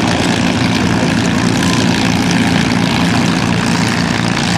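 Lockheed P-38 Lightning's twin Allison V-12 engines running steadily at taxi power, a loud even propeller-engine drone.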